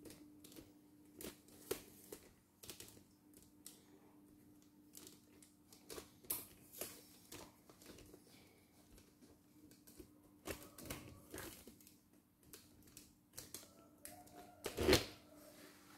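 Faint, irregular small clicks and taps from handling a computerized sewing-embroidery machine, over a low steady hum. A louder knock comes about a second before the end.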